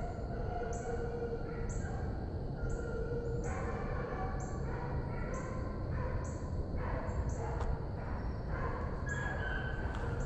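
Distant pack of hunting hounds baying and bawling on a trail, several drawn-out voices at different pitches overlapping and breaking off, over a steady high pulsing.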